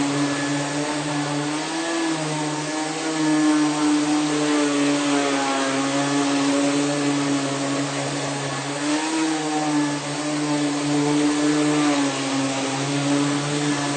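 Rainbow water-filter vacuum cleaner running steadily while vacuuming a mattress: a loud motor hum and whine over an airy hiss, its pitch rising briefly now and then as the load on the motor changes.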